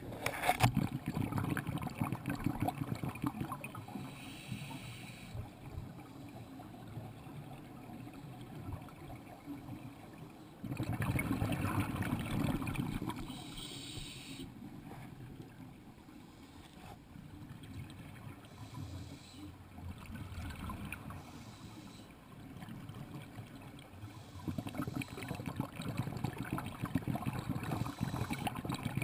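Underwater noise heard through a camera housing: a scuba diver's exhaled bubbles gurgling and crackling in louder spells, about eleven seconds in and again near the end, over a low muffled water rush.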